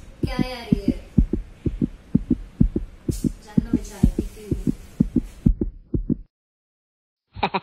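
Heartbeat sound effect: fast, regular low thuds, about three a second, that cut off abruptly about six seconds in.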